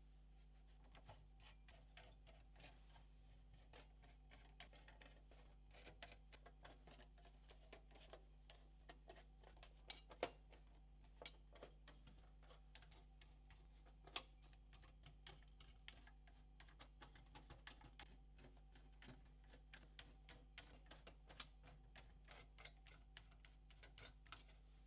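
Faint, irregular clicks and ticks of a screwdriver and small screws being taken out of the PS4 Pro's metal motherboard shield, with a few sharper ticks.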